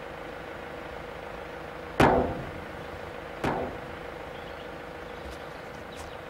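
Two sharp slams about a second and a half apart, the first louder, over a steady vehicle engine hum.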